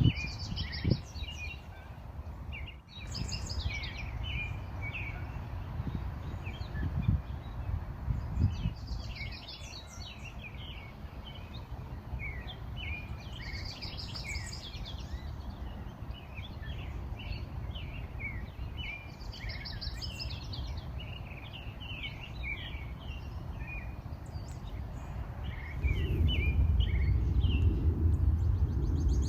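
Several songbirds chirping and singing in short quick phrases, over a low rumble that gets louder near the end.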